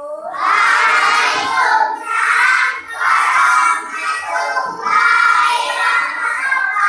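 A class of young schoolchildren singing together loudly in unison, in short phrases of about a second each.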